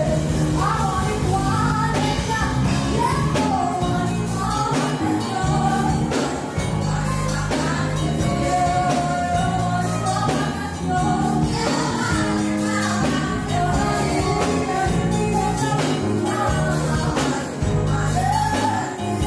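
A song plays: a singer's melody over a band accompaniment with a steady, repeating bass line.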